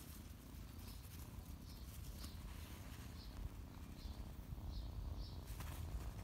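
Faint rustling and patter of a kitten scuffling in grass and clover against a low steady rumble, with a handful of short, high, faint chirps scattered through.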